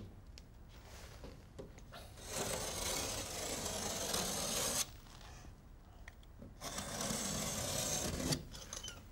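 Utility knife slicing along the fold through the paper backing of a snapped plasterboard sheet: two long cutting strokes of about two to three seconds each, the first starting about two seconds in.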